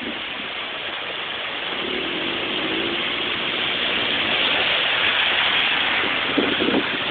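Floodwater rushing steadily, with cars driving through standing water on the flooded road; the sound grows a little louder past the middle as one passes close.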